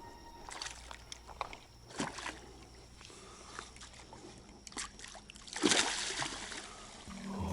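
Water sloshing and splashing, with a few short knocks and a louder splash about five and a half seconds in.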